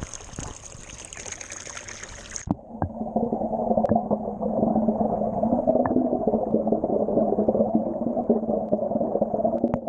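Heated water from a pool pump's return hose gushing and splashing into the pool. About two and a half seconds in, the sound turns muffled and louder as the outflow is heard from underwater, a churning, bubbling rush that cuts off sharply at the end.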